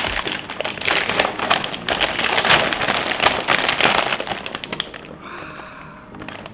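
A crinkly plastic snack bag being torn open and handled, then small puffed snack balls poured out into a paper tray. The dense crackling stops about five seconds in.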